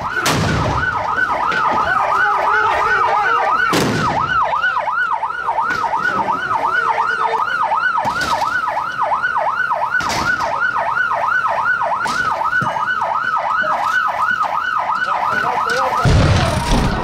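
Police car siren in a fast yelp, its pitch rising and falling about three times a second, with a few sharp knocks along the way. The siren cuts off about a second before the end, giving way to a burst of low rumble.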